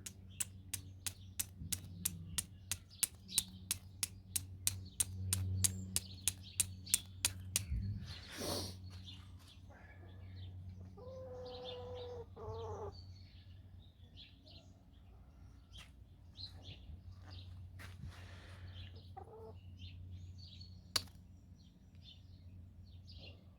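Small steel fire striker struck hard and repeatedly down a flint shard, about three sharp strikes a second for some seven seconds, to throw sparks onto amadou. A bird call and small birds chirping follow.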